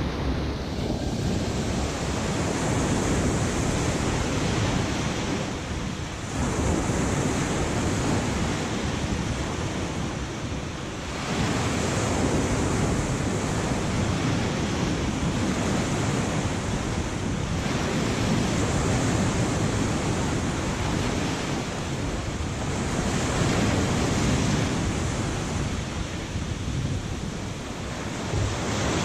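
Sea surf breaking on a sandy beach, mixed with wind buffeting the microphone: a steady rushing noise that swells and eases every few seconds.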